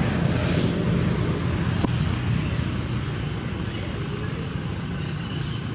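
Steady low rumble of outdoor background noise, slowly fading, with a single sharp click about two seconds in.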